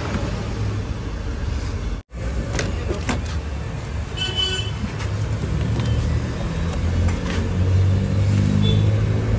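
Steady low hum of a running vehicle engine with a few scattered clicks, and a brief high pitched tone about four seconds in. The sound cuts out for a moment about two seconds in.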